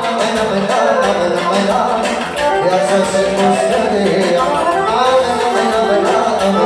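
Live band music amplified through PA speakers: a man singing into a microphone, backed by accordion and keyboard.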